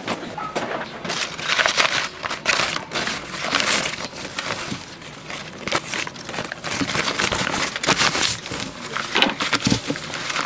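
Paper crinkling and rustling in quick, irregular bursts as it is crumpled and handled.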